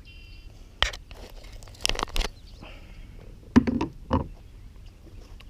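A few sharp knocks and clicks: one about a second in, a quick cluster near two seconds, and two more later on.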